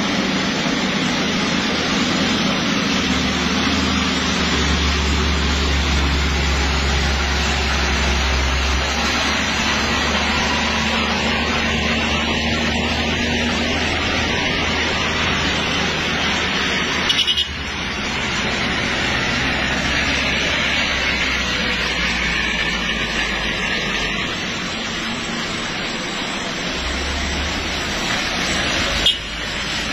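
Road traffic on a wet road: a truck engine rumbling past, then cars, under a steady hiss of tyres on wet tarmac. Two short clicks, one about halfway through and one near the end.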